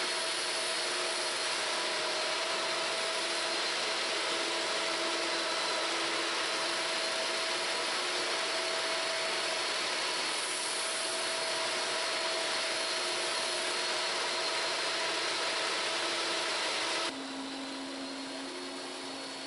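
Steady whine of a wet vacuum sucking up terrazzo grinding slurry, with a Klindex planetary floor grinder running alongside. About 17 seconds in the sound steps down in level to a lower hum.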